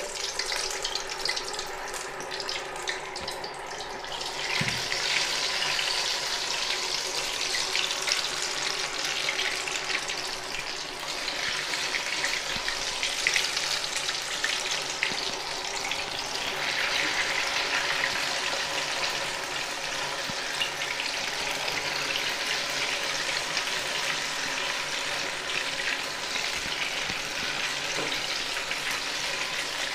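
Batter-coated kheel cutlets deep-frying in hot oil in a kadhai: a steady sizzle and crackle of bubbling oil, which grows fuller about four seconds in as more cutlets go into the oil.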